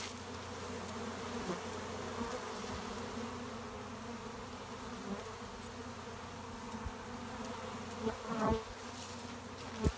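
A swarm of honey bees buzzing at close range: a steady massed hum. There is a brief louder swell about eight and a half seconds in and a short knock just before the end.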